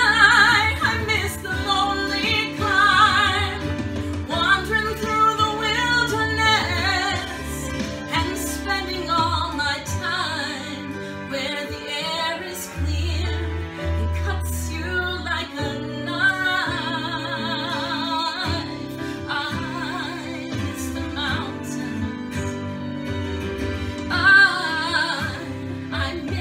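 A woman sings a musical-theatre ballad solo with vibrato on her held notes, over instrumental accompaniment. Loud sustained notes come right at the start and again near the end.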